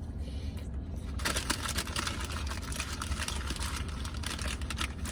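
Close-up eating sounds: chewing and the rustle and crinkle of a takeout food container, a dense run of small crackles starting about a second in, over a steady low hum.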